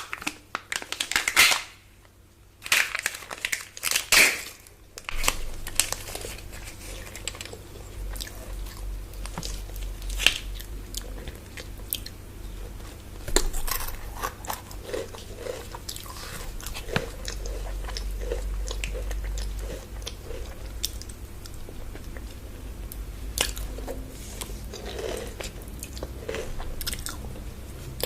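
Chocolate bars bitten with two loud crunches in the first few seconds, then chewed steadily close to the microphone, with wet mouth clicks and crunching through the rest.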